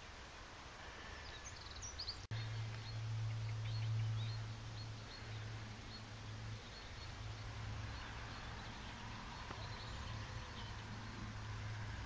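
A distant trail motorcycle's engine humming faintly and steadily, swelling a little now and then, with birds chirping.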